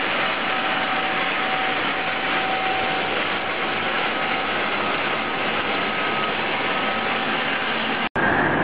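Vertical animal feed grinder and mixer machine running with a steady mechanical noise while it discharges shelled corn through its outlet pipe. The sound cuts out for an instant near the end.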